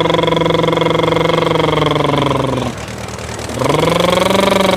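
A man imitating a vehicle engine with his voice: a long, steady 'brrrm' that breaks off a little past halfway, then after a short pause another 'brrrm' starts, rising in pitch and then holding.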